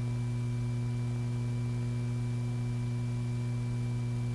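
Steady electrical hum with a strong low tone and a few fainter higher tones above it, the background hum of an old film soundtrack; no gunfire or mechanism sounds.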